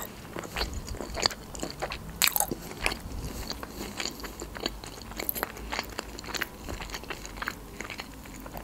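Close-miked mouth sounds of a person chewing a baked sushi roll: irregular wet clicks and small crunches throughout.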